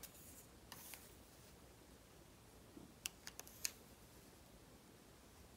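Near silence, with a few faint clicks a little past halfway as a plastic stick is pushed into a plastic jar of chunky glitter.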